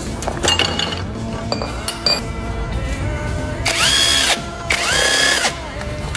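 Power tool run twice in short bursts, its whine spinning up, holding and winding down each time, with ratchet clicks from hand tools working on the engine before it.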